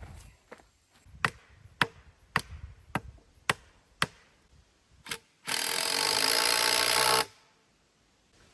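About eight sharp knocks on wood, roughly two a second, then a power tool running in one loud burst of under two seconds, during work bracing a wooden gate post.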